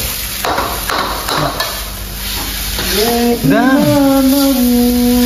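Spatula scraping and stirring food in a metal pan, then about three seconds in a voice slides up and holds one long sung note.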